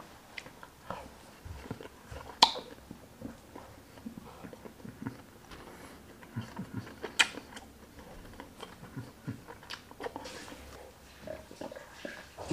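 A person chewing food close to the microphone, with soft irregular mouth sounds and a couple of sharp smacks or clicks. Near the end he drinks from a glass of soda.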